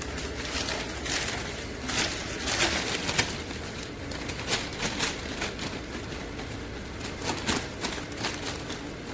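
Chamber vacuum packaging machine running, its vacuum pump giving a steady low hum, with irregular short hissing and crackling noises over it.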